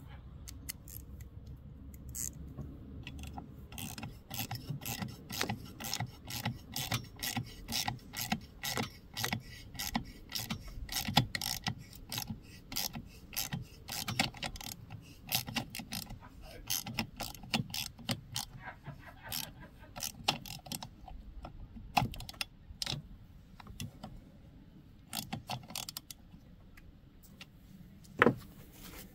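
Ratchet wrench clicking in quick strokes, several clicks a second, as the screw holding the exhaust deflector onto a Poulan Pro chainsaw muffler is run down. The clicking thins to a few last clicks in the final third as the screw is snugged.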